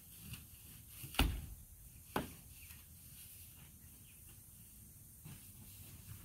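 Faint scratching of a long-handled brush scrubbing polycarbonate greenhouse panels, with two sharp knocks about a second apart near the start.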